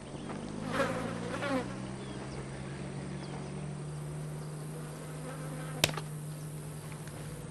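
Steady low buzzing hum from the room's sound system as the film clip starts playing, with a brief voice-like sound about a second in and one sharp click near six seconds.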